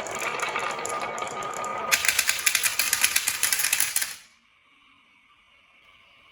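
Marbles rolling and clattering down a wooden marble run in a rapid stream of clicks, louder about two seconds in, then stopping abruptly about four seconds in, leaving only a faint hum.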